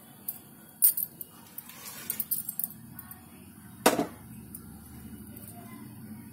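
Metal cookware clinking and knocking on a stove top while oil heats in a non-stick kadai: two sharp knocks, about a second in and near four seconds, with a flurry of light ticks in between, over a low steady hum.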